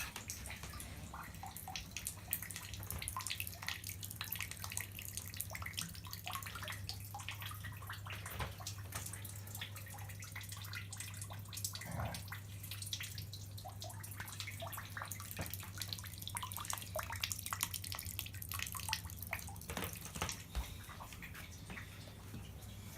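Water splashing and dripping from a water pipe that had frozen, in many small irregular splashes, over a steady low hum.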